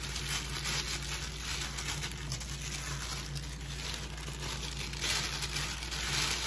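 Clear plastic bag crinkling and rustling as it is handled and pulled open, getting louder near the end.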